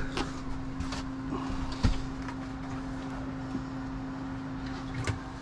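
A steady low mechanical hum with one constant tone, and a few light knocks: one near the start, one about two seconds in and one near the end.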